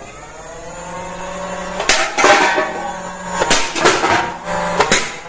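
Toy gun sound effects: a whir rising in pitch and loudness for about two seconds, then a string of sharp shot sounds, each with a short ringing tail.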